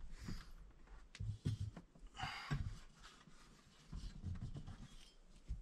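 Faint handling knocks and bumps as a flat-screen TV is swung and repositioned on its articulated wall-mount arm, with a short noisy rush about two seconds in.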